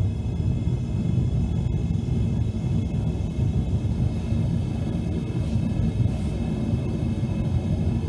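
Propane burner firing into a homemade furnace: a steady low rumble of the flame.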